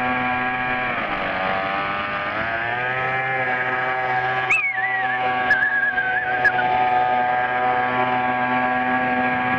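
Weed-wacker gas engine driving a 48-inch RC boat, running at high revs as the boat speeds across the water. Its pitch drops about a second in and climbs back up over the next second or so, then holds steady.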